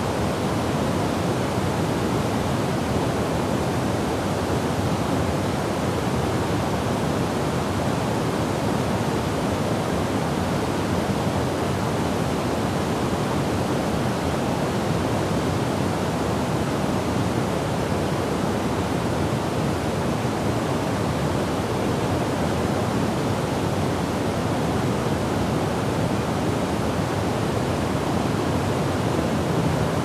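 River waterfall pouring over a rock ledge into a pool: a steady, even rush of falling water, fullest in the low and middle range, with no change in level.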